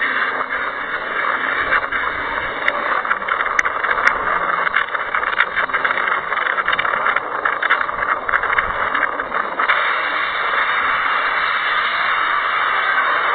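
Cyclone-force wind and driving rain blowing as a loud, steady rush of noise, with scattered clicks and rattles through the first part; the noise becomes more even about ten seconds in.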